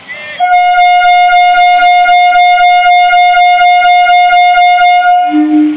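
MEMU train's horn sounding one long, loud, steady blast of about five seconds, dropping to a lower note just before it cuts off: the warning given as the train is about to depart.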